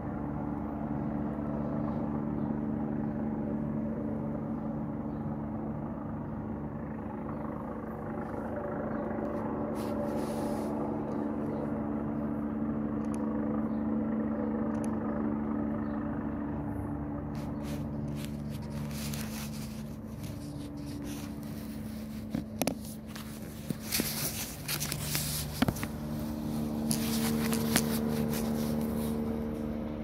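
A steady engine hum, its pitch shifting slightly near the end, with scattered clicks and knocks in the second half.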